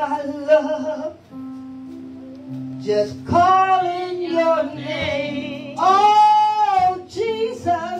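A woman singing a gospel song over an instrumental backing of held low notes, with one long note that wavers, about six seconds in.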